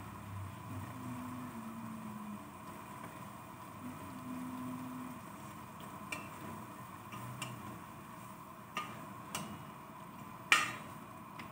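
A ladle stirring sliced papaya in an aluminium cooking pot over a steady hum. In the second half it knocks against the pot a few times, the loudest knock coming near the end.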